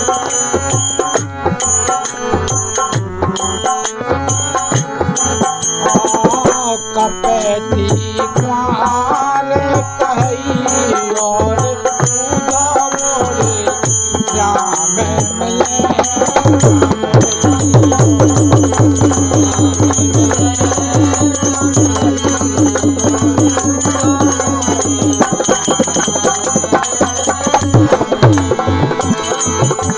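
Bundeli folk devotional music played by a small ensemble: harmonium melody over dholak drumming with steady jingling of hand cymbals. About halfway through, the dholak settles into fast, evenly spaced strokes.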